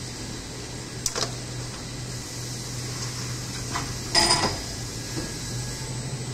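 Injection molding machine running with a steady low hum and hiss. A short sharp clack comes about a second in, and a louder metallic clatter about four seconds in, as the open mold starts to close.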